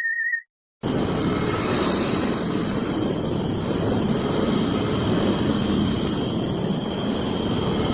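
Sonified space data: a warbling electronic tone ends just as it starts, and after a short silence a dense, steady noisy rumble comes in with faint steady high tones running over it.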